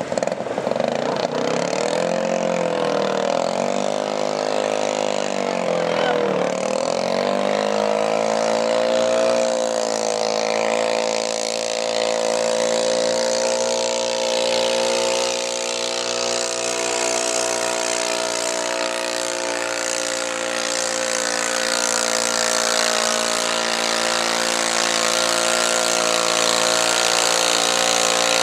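Modified pulling garden tractor's engine, revved up and down a few times, then held at high, steady revs under full load as it drags a weight-transfer sled down the track.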